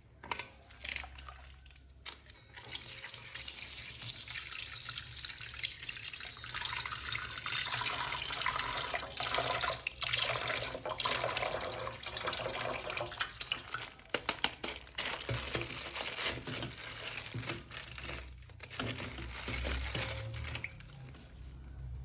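Water running from a tap and splashing, a steady hiss that starts about two and a half seconds in and eases off near the end, with scattered small clicks.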